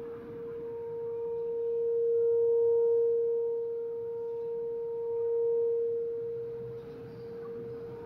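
Federal Signal 2001-130 rotating outdoor warning siren sounding its steady alert tone. The pitch holds level while the loudness swells and fades twice as the rotating horn sweeps past.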